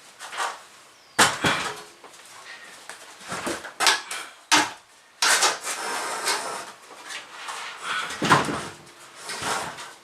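Irregular knocks, bumps and scraping rustles of objects being handled and shifted about, with several sharp knocks between them.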